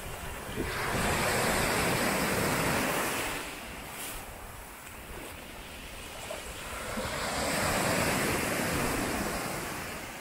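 Mediterranean sea waves breaking and washing up on a beach, swelling twice and fading between, with some wind on the microphone.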